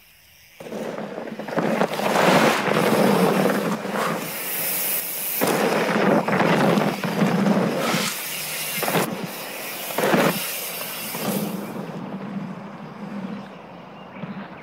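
Mountain bike ridden hard down a dirt trail: tyres rushing and skidding over loose dirt, with several sudden knocks. It dies down to a quieter outdoor background near the end.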